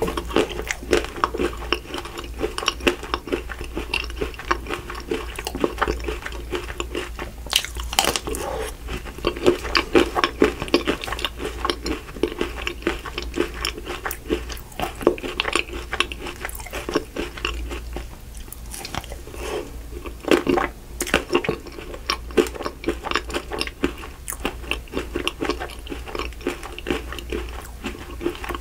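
Close-miked chewing of a bite of Lotus Biscoff ice cream bar, its chocolate and biscuit-crumb shell crunching between the teeth in many quick, irregular crackles.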